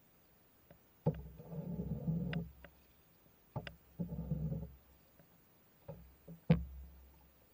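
Paddle strokes from a small boat on calm river water, three in all, about every two and a half seconds. Each begins with a sharp knock of the paddle against the boat's side, followed by the swish and gurgle of the blade pulling through the water.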